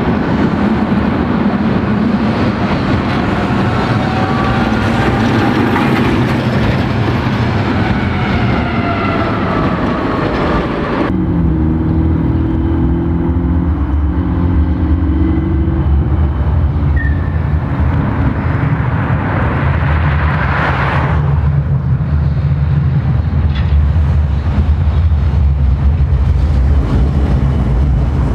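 Electric trams running on a city street: in the first part a traction motor whine rises in pitch over street noise, then, after a cut, a steady low hum builds as a modern articulated Astra Imperio low-floor tram comes up and passes close near the end.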